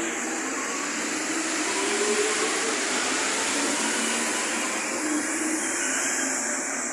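Inside an NS-74 rubber-tyred metro train car running on the line: a steady rush of running noise with a faint motor whine that drifts up and down in pitch.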